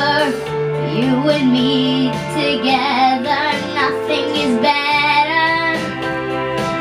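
A young girl singing a pop ballad into a microphone over a recorded backing track, her voice wavering with vibrato above steady sustained chords.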